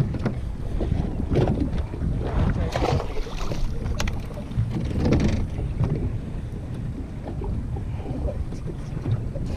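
Wind buffeting the microphone aboard a boat at sea, a dense uneven low rumble, with a sharp click about four seconds in.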